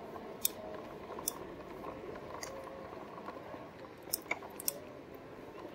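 Riding noise of a RadMini fat-tyre electric bike rolling slowly over packed beach sand: a faint steady rustle with about five sharp clicks and rattles scattered through.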